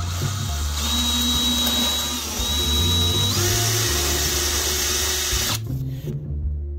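DeWalt cordless drill running, boring a hole through foam board for a turnout throw, with a high motor whine that wavers about halfway through; the drill stops about a second before the end.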